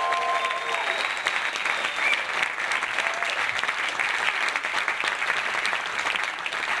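Audience applauding steadily, with a held sung or voiced note dying away about a second in.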